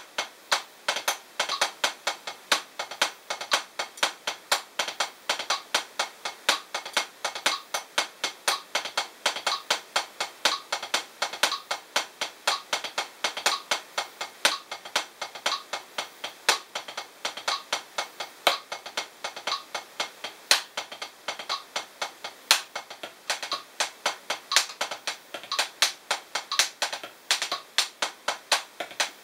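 Hickory 7A drumsticks playing the drag paradiddle #2 rudiment on a Drumeo P4 practice pad at 60 bpm: a quick, even stream of sharp stick taps, with louder accented strokes recurring about every two seconds.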